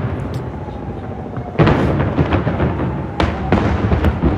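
Large aerial fireworks shells bursting with deep booms that rumble away: one loud burst about a second and a half in, then several more in quick succession near the end.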